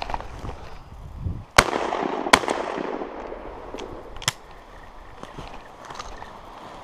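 Two shotgun shots about three-quarters of a second apart, the report rolling away for a couple of seconds after them, then a fainter sharp crack about two seconds later. Footsteps rustle through brush before the first shot.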